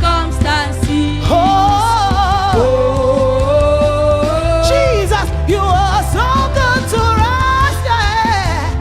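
Live gospel worship music: a voice singing long, wavering held notes over a steady bass line and drums.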